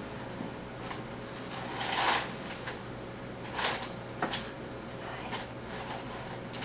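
A few short rustling and clicking handling noises, the loudest a rustle about two seconds in, with sharper single clicks a little after four and five seconds.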